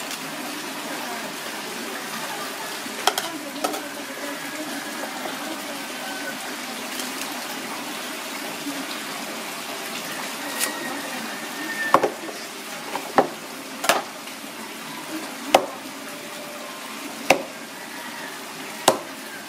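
Cleaver chopping roast pork on a thick wooden chopping block: about six sharp chops, one every second or two, starting a little past halfway. Before that there is only a steady background wash, with no clear sound from the hands pulling the meat apart.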